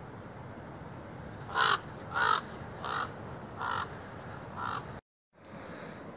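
A crow-type bird cawing five times, harsh calls a little under a second apart. Behind it runs the steady rush of the Colorado River.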